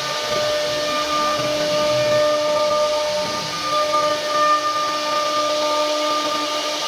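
CNC router spindle running steadily while cutting wood, a constant high whine over a hiss.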